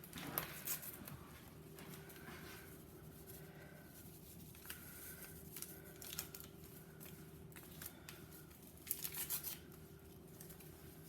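Sazón seasoning packets being torn open, short crinkly tearing sounds with a couple about half a second in and a louder run about nine seconds in, over a faint steady hum.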